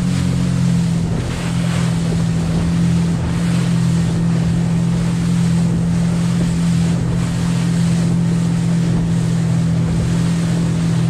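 Motorboat engine running steadily under way, a constant low drone, with wind buffeting the microphone and water rushing past the hull.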